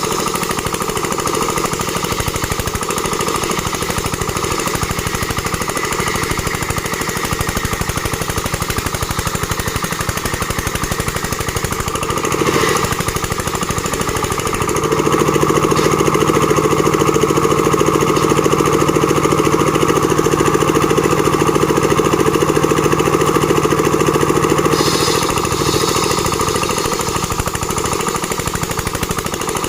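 Engine-driven plank-making machine running with a rapid, even hammering beat. About halfway through it grows louder and takes on a steady low hum for some ten seconds, then eases back.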